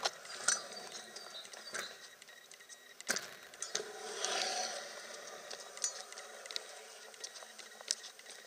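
Stunt scooter riding on skatepark concrete. Sharp clacks and knocks come every second or so from the deck and wheels hitting the ground, with a short rolling scrape about four seconds in, over a faint hiss of wheels.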